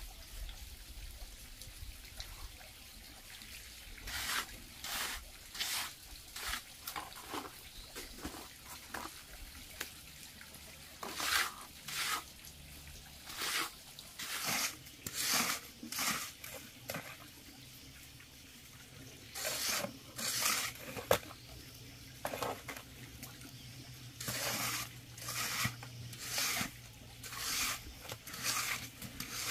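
Hand trowel smoothing a freshly laid wet cement surface: repeated wet scraping strokes, coming in runs of several strokes with short pauses between.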